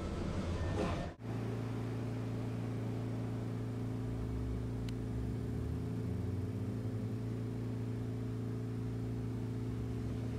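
Inside an old streetcar: a steady electrical hum of several fixed low pitches, after a sudden break in the sound about a second in.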